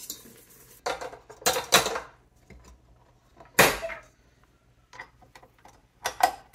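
Stainless steel mixing bowl and wire whisk attachment clinking and knocking as they are handled and fitted onto a stand mixer, with one sharp metal clunk about three and a half seconds in the loudest.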